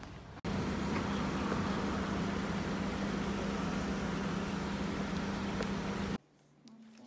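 A steady engine running, a constant low hum under a rushing noise. It starts abruptly about half a second in and cuts off abruptly near the end.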